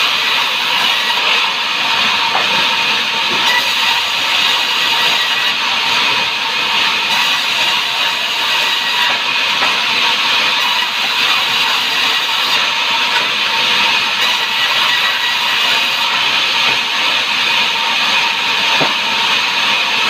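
Sawmill machinery running: a loud, steady hissing noise with faint steady tones under it and no break.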